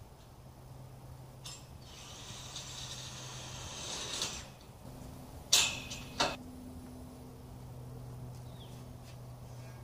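A drill driving a self-drilling tek screw into the greenhouse's steel tubing, a grinding whir for about two seconds that grows louder as it bites, followed by two sharp knocks less than a second apart.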